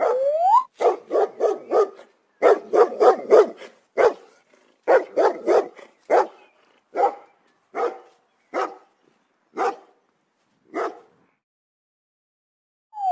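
A dog barking repeatedly. The barks come in quick runs at first, then spread out and grow fainter until they stop near the end. A short rising tone is heard at the very start.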